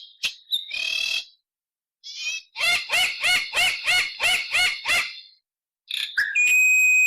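Bird calls edited together in short clips. The main clip is a rapid series of about nine repeated arched call notes, roughly four a second. Near the end comes a steady high whistle-like tone.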